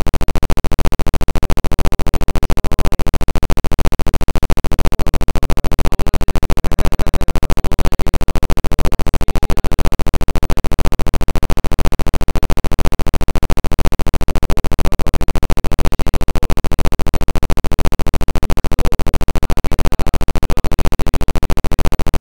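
Background music with a fast, steady pulse.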